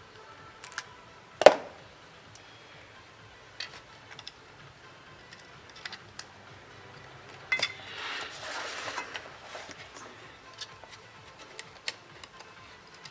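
Small tools and tablet parts handled on a workbench: scattered light clicks and taps, a sharper knock about a second and a half in, and a short scraping rustle a little past the middle.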